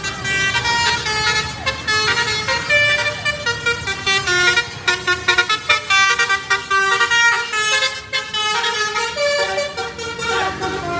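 Bus telolet horn: a multi-trumpet musical horn on an Indonesian bus playing a fast tune of short stepped notes, several tones sounding together.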